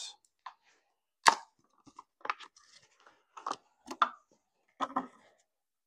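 Plastic blister pack being torn open: a handful of sharp crackles and snaps, the loudest about a second in.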